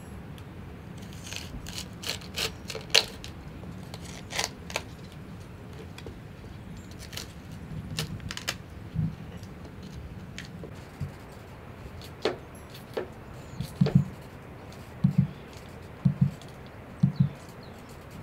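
A kitchen knife cutting a cauliflower head apart on a wooden cutting board: crisp snaps and cracks as the stalks and florets split, then in the second half a run of dull knocks, some doubled, as the blade strikes the board.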